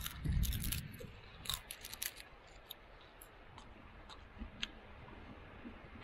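Crunching bites and chewing of crisp, charred fried seaweed. The crunches are loudest in the first two seconds, then only a few faint clicks.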